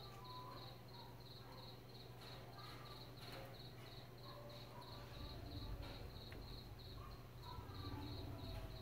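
Faint, high insect chirping, pulsing evenly about three times a second, over a steady low hum, with light clicks and rustles of wires being handled and plugged in.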